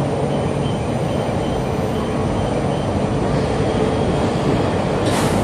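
E4 series double-deck Shinkansen standing at the platform, its onboard equipment giving a steady low rumble and hum, with a brief hiss about five seconds in.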